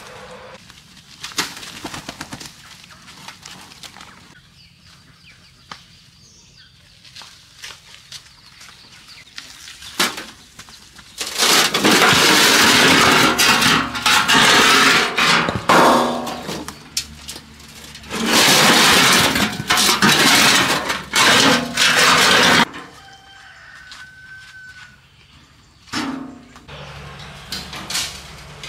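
Hollow concrete blocks being tipped out of a steel wheelbarrow, scraping and clattering against the metal tray and onto the ground in two long, loud spells, the first about eleven seconds in and the second about eighteen seconds in. Before and after these spells there are only a few scattered knocks.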